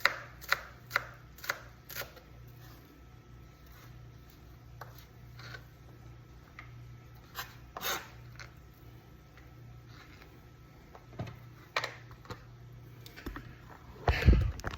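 Knife cutting red onion on a cutting board: sharp knocks about two a second at first, then scattered cuts. A louder low thump comes near the end, over a steady low hum.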